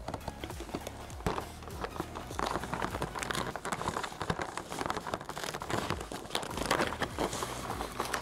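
Cardboard door of a cosmetics advent calendar being picked at and torn open, with irregular rustling and crinkling of card.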